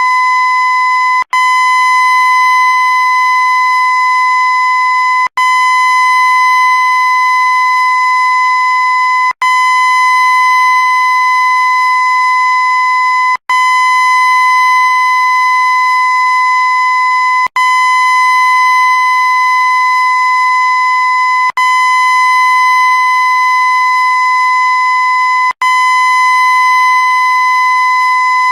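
A loud, steady, high-pitched electronic tone held at one pitch. It is looped, with a split-second break about every four seconds.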